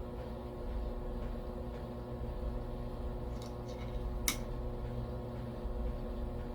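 Steady low hum made of several held tones, with one short sharp click about four seconds in and a couple of fainter ticks around it.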